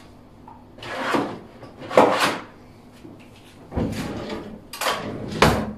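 A kitchen cabinet drawer being slid open and pushed shut, heard as four or five short sliding and knocking noises, the loudest about two seconds in.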